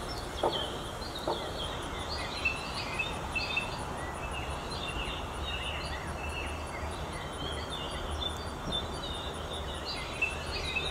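Outdoor ambience: small birds chirping over and over against a steady background hiss, with a faint, very high ticking about three times a second from about two seconds in.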